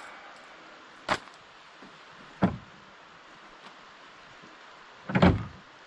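Two sharp knocks, about one second and two and a half seconds in, then a heavier, longer thump near the end, the loudest of the three.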